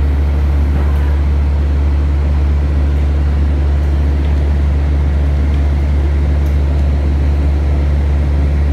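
Steady, loud low drone heard from inside a vehicle moving slowly along, its engine running evenly.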